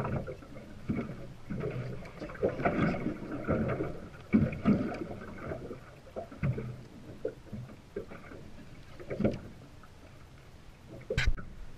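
Water slapping against the hull of a small drifting fishing boat in irregular bursts, with knocks on the boat and one sharp knock near the end.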